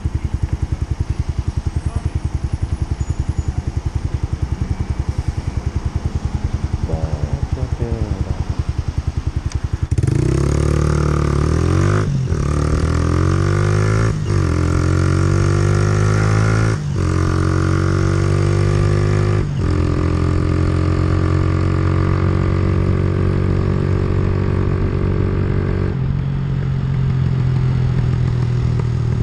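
Direct Bikes Storm 125 motorcycle through a Black Widow aftermarket exhaust with the baffle in, idling with an even pulsing beat for about ten seconds. Then it pulls away: the engine note climbs in each gear and drops at four quick upshifts a few seconds apart, before settling into a steady cruise.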